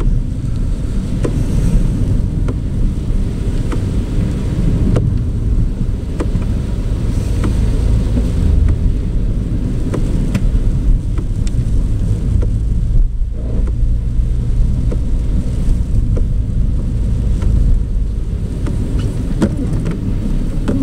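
Cabin noise of a 2010 Mini One Diesel driving along a wet lane: a steady low rumble of engine and tyres on wet tarmac, with a few faint ticks scattered through it.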